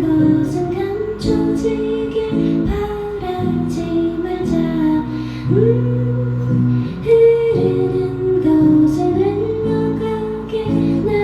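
A woman singing, holding long gliding notes, over a strummed acoustic guitar: a live acoustic folk-style song.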